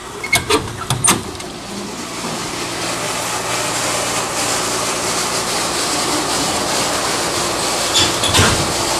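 A metal door latch clicks and clanks open, then the steady rush of the protein skimmer's water pump and flowing water swells and keeps running, with a couple of knocks near the end.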